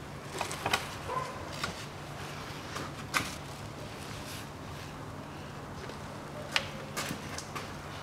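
Scattered sharp clicks and knocks of a Lexus CT200h's plastic engine undertray being unclipped, pulled down and handled, the sharpest about three seconds in and again near six and a half seconds, over a steady low hum.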